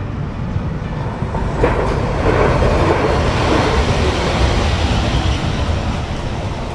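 Hiroshima street tram passing close by on street-embedded rails. A sharp click about a second and a half in, then wheel-and-rail noise that swells, peaks for a couple of seconds and fades away.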